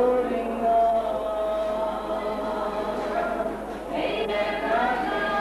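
Several voices singing together with an acoustic guitar, holding long notes; the sound dips briefly near the end as the next phrase begins.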